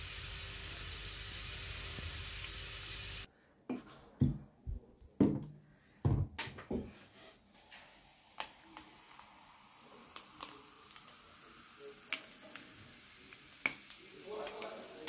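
Bacon and asparagus frying in a pan, a steady sizzle that cuts off about three seconds in. Then come a few knocks of tableware and a drinking glass being handled, followed by scattered light clicks.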